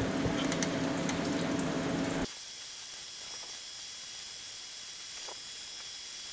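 CNC milling machine running a peck-drilling cycle with coolant splashing: a steady machine hum under a watery hiss. About two seconds in it cuts off abruptly to a much quieter hiss with a faint high whine.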